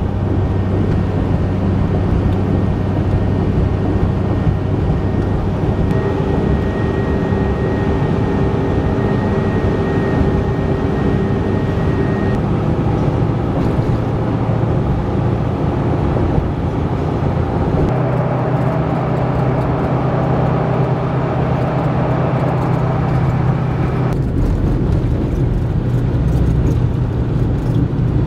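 Car or truck driving at road speed, heard from inside the cabin: steady engine and tyre drone. It changes abruptly three times as different stretches of road cut in.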